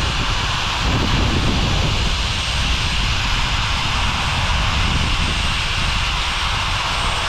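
Reciprocating saw fitted with a pruning blade, running steadily as it cuts through a thick tree branch.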